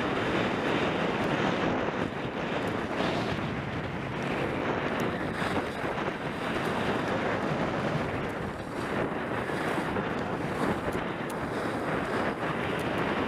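Wind buffeting a skier-mounted camera's microphone during a downhill run, a steady rushing noise mixed with the hiss and scrape of skis on packed snow.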